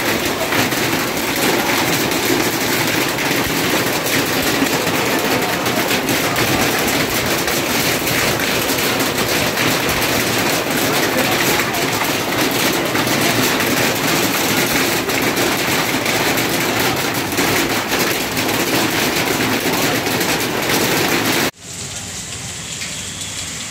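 Heavy hail falling: a loud, dense hiss of countless small impacts of hailstones on the road, vehicles and roofs. Near the end it drops suddenly to a quieter hiss.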